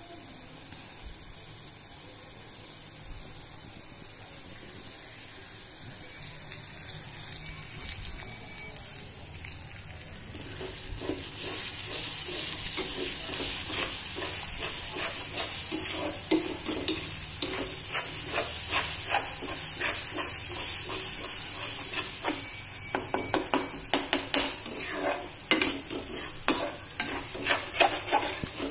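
Thick gravy sizzling in a kadhai while a spoon stirs it and scrapes against the pan. About halfway through the sizzle gets louder, and near the end the scraping strokes come thick and fast.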